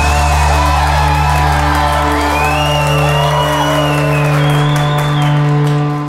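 Talk show's intro theme music: held low bass notes under sustained chords with gliding melody lines above, starting to fade out near the end.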